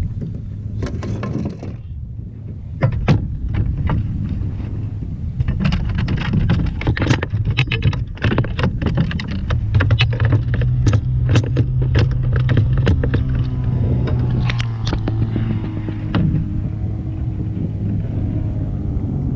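A motor running with a steady low hum, with many sharp knocks and clicks over it, thickest in the middle of the stretch.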